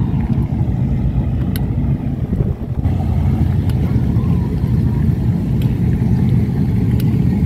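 Loud, steady low exhaust rumble of show cars' engines running as they drive out.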